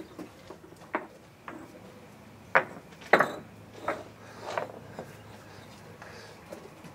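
Concrete paving stones being set by hand, clacking sharply against the neighbouring pavers about seven times over the first five seconds, loudest around three seconds in. They are Belgard Dublin Cobble pavers being laid on a sand bed.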